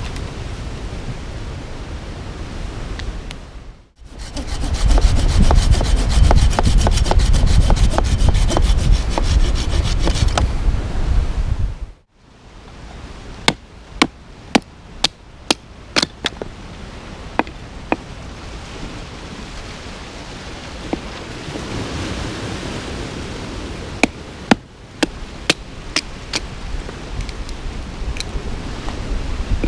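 Surf and wind on the microphone for the first few seconds, then dry wood being sawn for about eight seconds with rapid rasping strokes. After that, a knife is batoned down through a short log of dead ironwood to split kindling: sharp wooden knocks in two clusters over steady surf and breeze.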